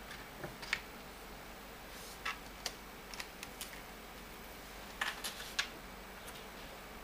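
Light plastic clicks and taps as small parts are handled around a mini stereo speaker's dock, a dock adapter being pressed in and a phone brought up, over a steady faint hiss. The clicks come singly and in small clusters, sharpest near the start and again about five seconds in.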